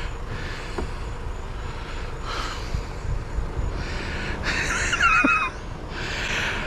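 A man breathing hard, with three loud, breathy exhales, the second one longest and carrying a brief wavering tone, over a steady low rumble of wind on the microphone.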